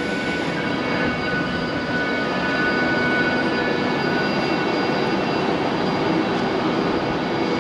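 Passenger train running past on the main line: a steady rumble with thin, steady whining tones over it.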